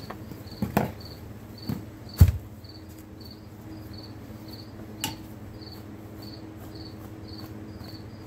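A cricket chirping steadily, about two chirps a second, over a low steady hum. A few knocks from work on the table cut in, the loudest a heavy thump a little over two seconds in and a sharp click about five seconds in.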